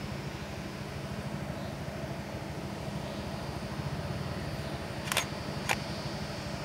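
Steady low outdoor rumble with a faint hum. A little after five seconds in come two sharp clicks about half a second apart.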